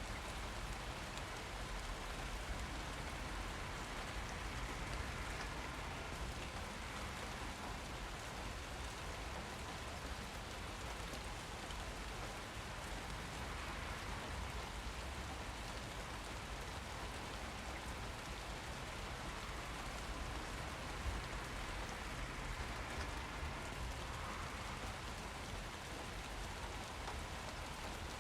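Steady rain falling and pattering on surfaces, an even dense hiss of drops with no let-up, and a single small sharp tap about three quarters of the way through.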